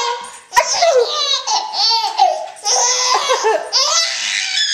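Seven-month-old baby laughing at a sneeze, a string of high-pitched laughs and squeals, with a short sharp click about half a second in.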